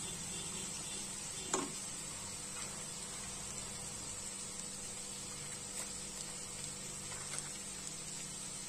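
Paneer and vegetable masala sizzling faintly in a pan as it is gently stirred with a wooden spatula. There is one light knock of the spatula about a second and a half in, then a few fainter ticks.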